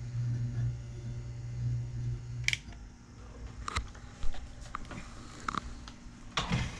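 Weller soldering gun's transformer humming steadily while its trigger is held, cutting off with a click about two and a half seconds in. Then come a few light clicks and knocks as the gun is handled.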